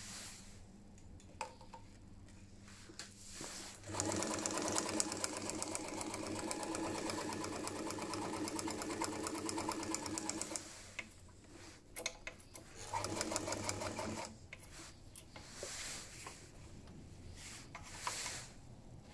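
New Home Janome Sailmaker sewing machine running, stitching steadily for about seven seconds, then a second short run of about a second. Between the runs and near the end there are scattered clicks as the machine is handled and its stitch-selector dial is turned.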